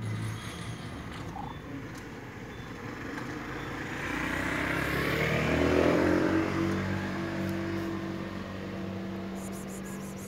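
A car passing along the street, its sound swelling to a peak about six seconds in and then dropping away in pitch, leaving a steady low engine hum. At the very start a cat's purr fades out under it.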